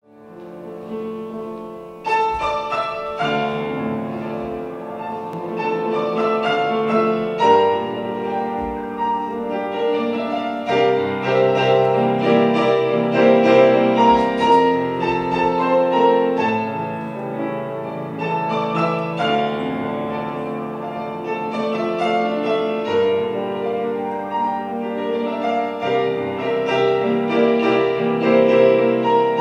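Piano music, fading in from silence over the first two seconds and then playing steadily.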